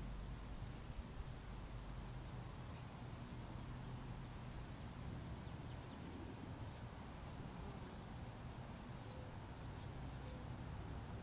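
Faint, high-pitched chirps, many short ones in quick succession starting about two seconds in, over a steady low hum.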